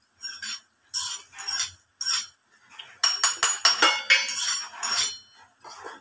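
Metal utensils clinking and scraping against dishes: a few separate clinks, then a quicker run of clattering about halfway through.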